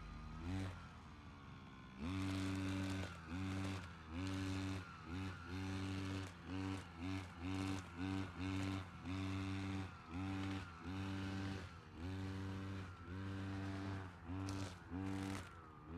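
Brush cutter engine revved in repeated bursts, about one a second, its pitch rising and falling back toward idle between bursts as it cuts grass; the first two seconds are quieter.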